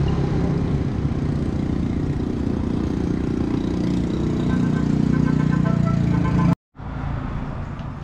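Steady low engine rumble of a motor vehicle running close by, swelling a little between about four and six seconds in, cut off briefly by a moment of silence.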